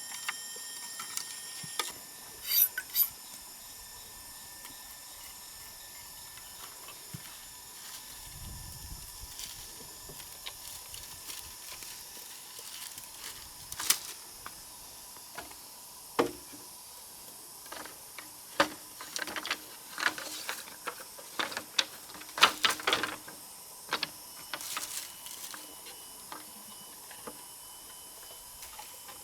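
Irregular sharp clicks and knocks of hand building work, several in quick clusters in the second half, over a steady high chirring of insects.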